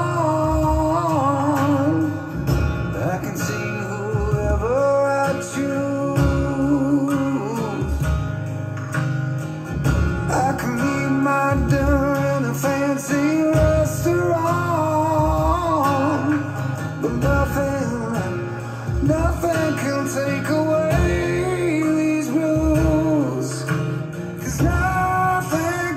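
A song with male singing over guitar and a steady beat, played back from a cassette tape on a restored Aiwa AD-F990 deck.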